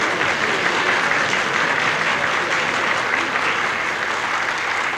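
A large assembly of deputies applauding: dense, steady clapping from many hands.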